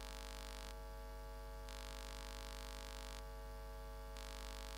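Steady electrical mains hum with faint static hiss from the audio system, the hiss shifting in level every second or two.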